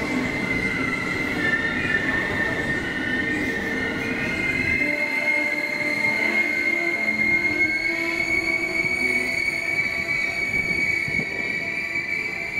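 Passenger train coaches rolling along the platform, their steel wheels squealing on the rails in a steady high-pitched tone. A low rumble drops away about five seconds in while the squeal carries on.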